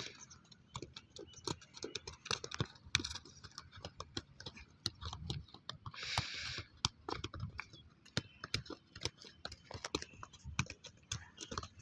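Scattered light clicks and crunches, several a second and unevenly spaced, as people walk on dry, stubbly grass and dirt. A short hiss comes about six seconds in.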